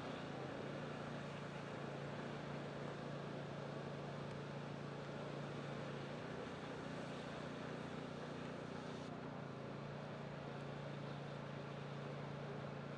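A motor running steadily with a low, even hum over a background hiss, its pitch shifting a little in the middle.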